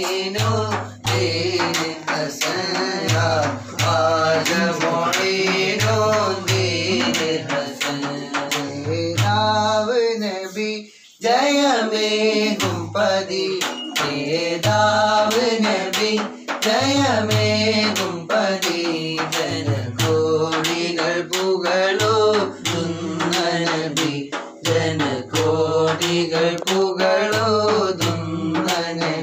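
Men's voices singing a devotional madh song, with a hand-held frame drum with jingles (daf) beating steady time. The singing and drumming stop for a moment about a third of the way through, then carry on.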